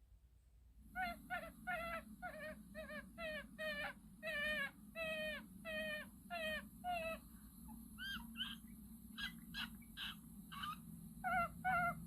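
Raccoon calls: a quick series of short, wavering, pitched chitters, about two to three a second, then sharper, more scattered calls for a few seconds, then the quick series again near the end.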